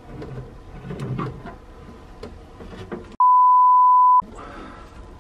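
Clicks and rustles from a can of expanding polyurethane foam being sprayed by hand. About three seconds in, a loud one-second censor bleep, a single steady tone, blanks out all other sound and cuts off abruptly.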